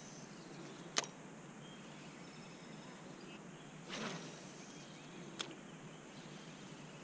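Quiet outdoor ambience with faint insect sounds. A sharp click comes about a second in, a short soft brushing noise near four seconds, and a lighter click shortly after.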